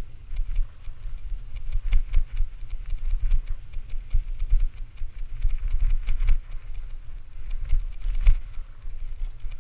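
Low rumble of wind buffeting a moving GoPro's microphone, with frequent irregular clicks and rattles.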